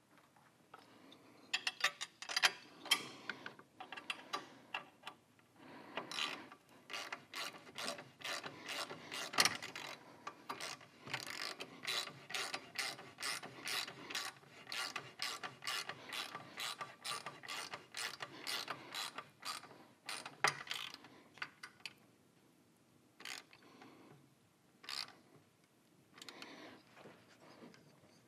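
Hand ratchet wrench clicking in runs of quick strokes, about two to three clicks a second, as motorcycle crash bar bolts are run down snug. It stops at about 22 seconds, with a few single clicks near the end.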